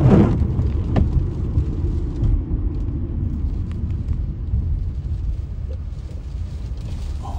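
Steady low rumble of road and wind noise inside a car driving at speed, louder for a moment at the very start.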